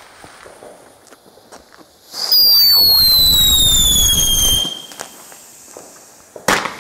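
A firework whistling loudly over a rushing noise for about two and a half seconds, its whistle falling steadily in pitch, then a single sharp bang about two seconds later.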